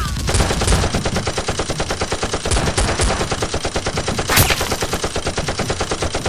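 Automatic gunfire sound effect: a continuous rapid burst of machine-gun shots at about ten a second, with a few sharper cracks and the loudest shot a little after four seconds in.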